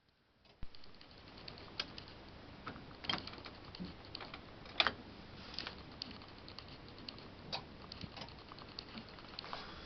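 Bosch WAY32541 washing machine clicking from the back while it fails to power on, with its display dark: one sharp click about halfway through among fainter irregular ticks. The click recurs every eight seconds or so and began after a household power failure.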